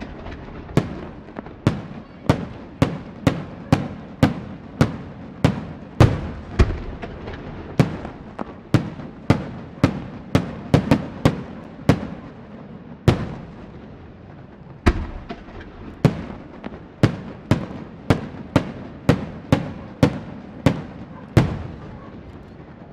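Professional display firework shells bursting overhead in rapid succession, a sharp bang about twice a second. There is a brief pause a little past halfway, and then the bursts resume.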